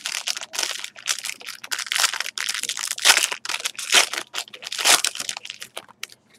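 Trading-card pack wrapper crinkling in the hands, a run of sharp, irregular crackles that stops about six seconds in.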